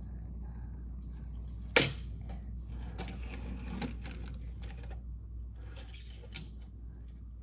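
Toy cars clacking: one loud, sharp clack about two seconds in, then a few fainter clacks, over a steady low hum.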